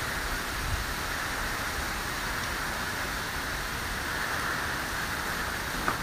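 Steady hurricane rain, an even hiss with no breaks.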